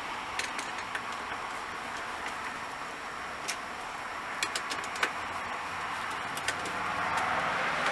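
Steady background hiss with a few faint, scattered light clicks and taps.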